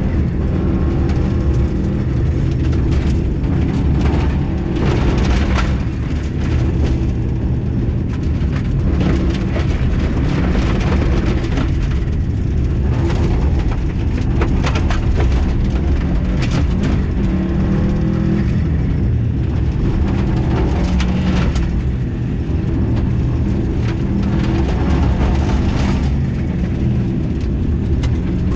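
Rally car engine running hard at high revs, heard from inside the cabin, with gravel and stones clattering against the underbody in frequent short bursts.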